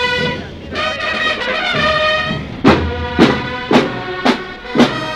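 Military marching band playing: brass holding chords, then about halfway in, strong drum beats enter about twice a second, in marching time under the brass.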